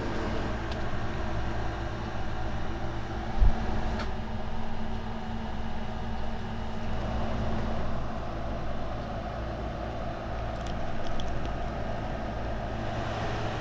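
Steady low mechanical hum of a running motor or engine, with one short thump about three and a half seconds in and a few faint clicks near the end.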